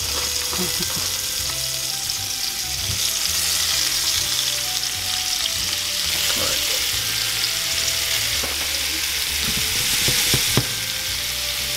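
Flour-dredged beef stew meat sizzling in hot olive oil in a pot as more pieces are laid in by hand: a steady frying hiss, with a few soft touches as pieces go in.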